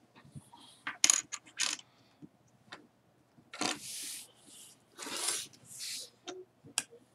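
Small plastic LEGO pieces clicking and clattering on a wooden tabletop: a quick cluster of sharp clicks about a second in, then several longer scraping sounds as pieces are slid across the table, with a few more clicks near the end.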